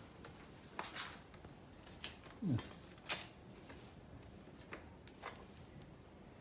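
Scattered light clicks and taps from tools and crankset parts being handled during bicycle crank installation, the sharpest a little after three seconds in, with a brief falling squeak about two and a half seconds in.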